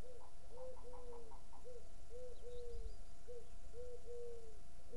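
A dove cooing: low, soft phrases of two or three notes, the last note drawn out, repeated about every second and a half. In the first second and a half a quick run of short, higher notes joins it.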